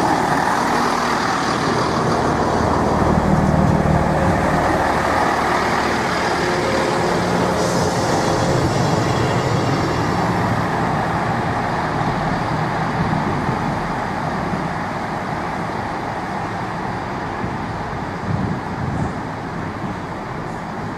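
Diesel train engines running at a station platform, a loud steady rumble that slowly fades.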